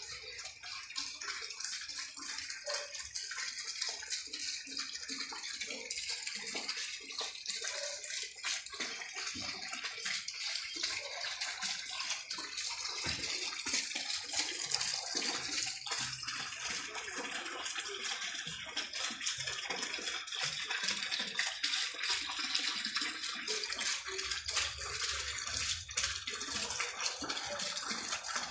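Dense night chorus of crickets and cicadas: a steady, high-pitched shimmering trill from many insects at once.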